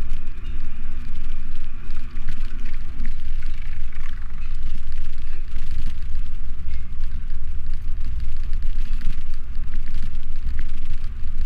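Steady low rumble of wind and road noise on a GoPro action camera riding along on a bicycle, with scattered light clicks and rattles.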